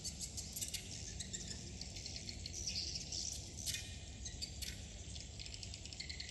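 Swiftlet calls: a dense, continuous stream of high twittering chirps and clicks from many birds.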